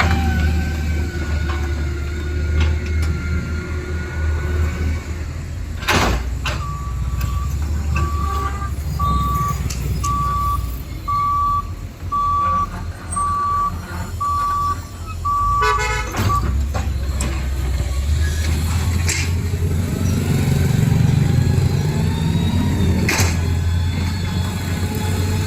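Small electric motors of RC toy construction vehicles humming steadily. In the middle comes a run of evenly spaced high beeps, about one a second for roughly ten seconds, like a reversing alarm, ending in a quick rattle of clicks, with a few sharp knocks around them.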